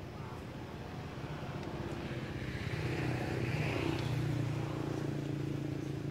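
A vehicle engine running with a steady hum, growing louder about halfway through and easing off near the end.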